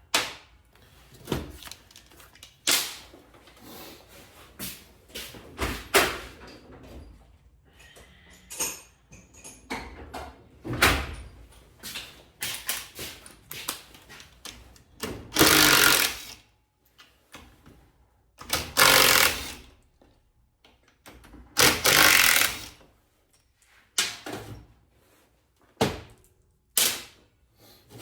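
Metal tools and sockets clattering and clanking in a garage, with many scattered knocks and three louder noisy bursts of about a second each in the second half.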